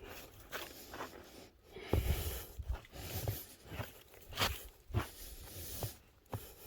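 Footsteps crunching through snow, irregular steps about every half second.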